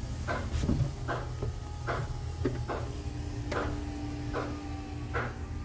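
Steady low machinery hum in a boat's bilge, with short irregular clicks and creaks every half second or so, and a steady mid-pitched tone coming in about halfway through.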